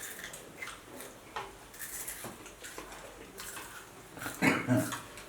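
Close mouth sounds of eating: chewing, lip smacking and small slurps, scattered and irregular, with a brief louder voiced sound about four and a half seconds in.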